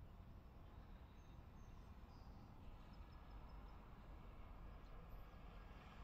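Near silence: a faint, steady low outdoor rumble, with a few faint, short high chirps from a distant small bird between about one and three and a half seconds in.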